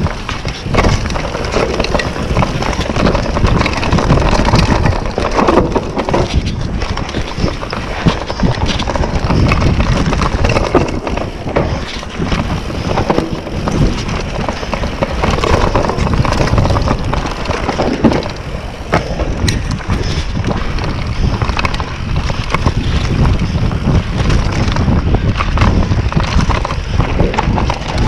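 Wind rushing over a GoPro Hero7's microphone as a YT Capra mountain bike descends a dirt and leaf-covered trail at speed. The tyres rumble over the ground, and the bike rattles and knocks over bumps.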